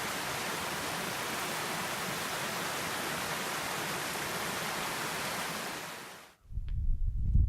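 Steady rushing of a flowing mountain creek, fading out about six seconds in. Low rumbling gusts and faint short bird calls follow near the end.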